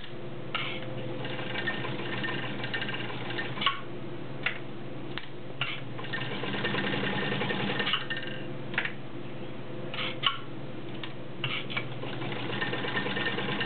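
Kenmore Model 84 sewing machine running, stitching through four layers of rubber-backed woven upholstery with a size 18 needle. The motor hums steadily, speeding up into a higher whir in two spells, with scattered sharp clicks.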